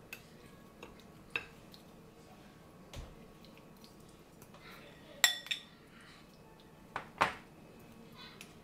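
Metal spoon clinking and scraping against a glass dish while marinade is spread over fish fillets: a few separate clinks, the loudest a short ringing one about five seconds in, and two more close together near seven seconds.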